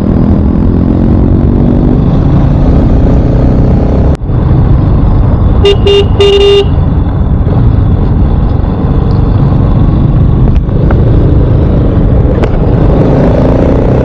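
KTM RC 200 motorcycle ridden slowly, its engine under heavy wind and road noise. About six seconds in, a vehicle horn sounds: two quick toots and a slightly longer one.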